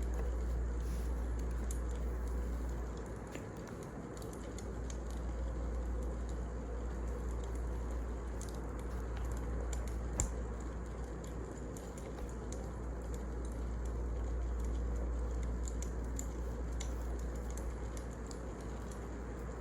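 Wood fire burning in a fireplace: scattered small crackles and pops over a steady low rustle, with one sharper pop about ten seconds in.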